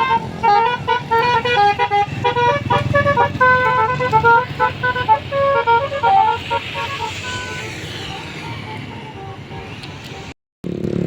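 Bus telolet horn, a multi-tone musical air horn, playing a quick tune of short stepped notes for about six seconds. Vehicle noise follows and fades, then the sound cuts out abruptly near the end.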